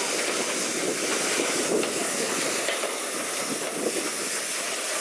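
Steam-hauled train under way, heard on board: steady running noise of the carriages on the track, with steam hiss.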